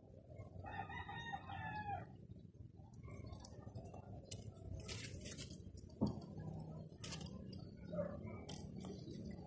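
A bird gives one drawn-out, pitched call of about a second and a half near the start, over faint low background noise. A single sharp knock comes about six seconds in.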